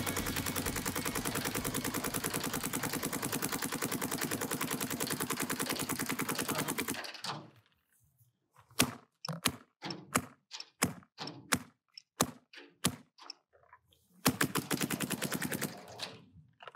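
Luxe X compressed-air paintball marker firing a fast, continuous string of shots that stops about seven seconds in. After a short pause come single shots at uneven intervals of about a second, then another brief rapid string near the end.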